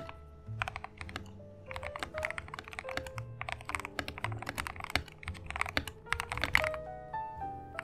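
Typing on a YUNZII KC-68 mechanical keyboard with hand-lubed Gateron yellow linear switches and a tape mod in its plastic case: quick runs of keystrokes with short pauses between them. Light background music plays underneath.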